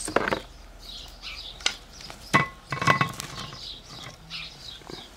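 A few sharp knocks and clatters as firewood is handled and pushed into an open wood fire, two of them with a brief ringing tone. Small birds chirp throughout.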